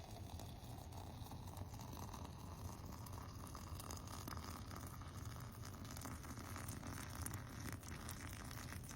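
Boiling water being poured into a French press over the herbs, a faint steady splashing with a pitch that rises slowly as the pot fills.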